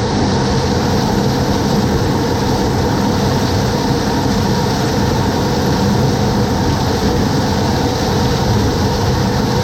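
Heavy farm machinery running steadily: a loud, even engine drone with dense mechanical noise over it.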